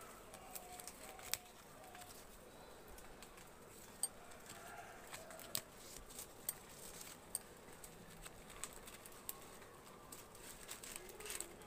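Faint outdoor background with scattered short, sharp clicks and ticks at irregular intervals.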